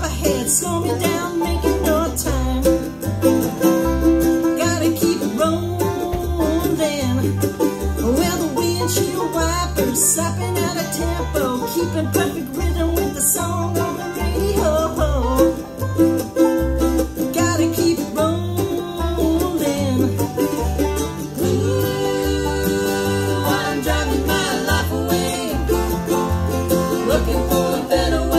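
Bluegrass band playing: banjo, mandolin and acoustic guitar picking over an upright bass that plucks steady alternating bass notes.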